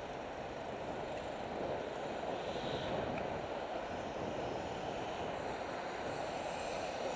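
Steady road-traffic noise mixed with wind rushing over a bicycle-mounted camera's microphone as the bike rolls.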